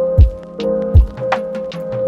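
Background music: held synth-like chords over a beat, with two deep kick-drum hits and sharp percussion clicks.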